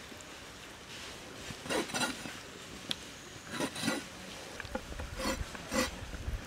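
Large kitchen knife chopping raw chicken offal on a wooden cutting board: a handful of chops, some in quick pairs, a second or two apart.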